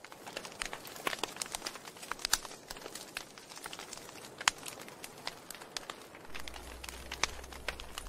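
Dry straw and kindling crackling and snapping irregularly as they catch alight under split logs in a stone fire pit.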